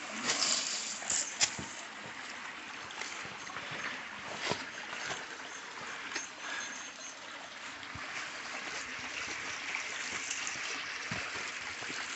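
Creek water running over rocks as a steady rush, with a few sharp knocks in the first second or two and scattered faint clicks.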